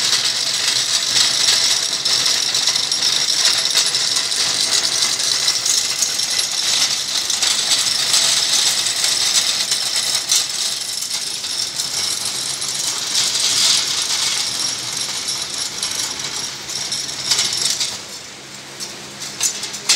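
Homemade friction welding machine running: its motor-driven spindle spins a metal tool against aluminium, making a loud, steady, hissing metallic rattle that drops away near the end.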